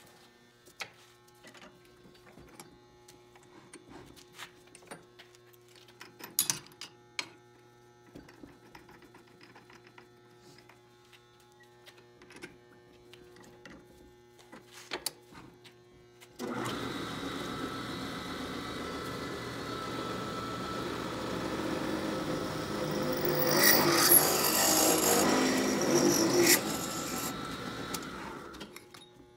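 Bench drill press starting up abruptly about halfway through and running steadily, then drilling a hole through a metal tube clamped in a cross-slide vise. The cutting noise gets louder and rougher with sharp squeals a few seconds before the drill stops near the end. Before it start, only scattered light clicks and knocks of the vise and tube being handled.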